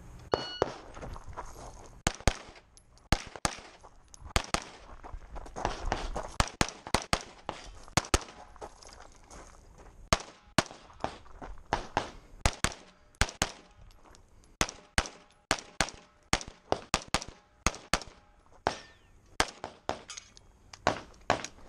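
Rapid pistol fire from an optic-equipped competition pistol: dozens of shots in strings, many in quick pairs, with short pauses between groups.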